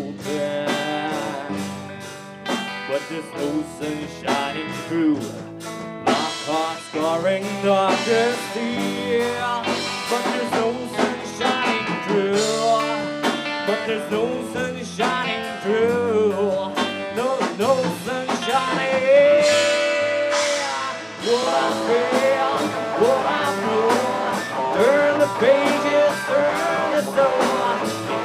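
Instrumental break in a blues-tinged rock song: a lead guitar plays bending notes over a steady drum beat.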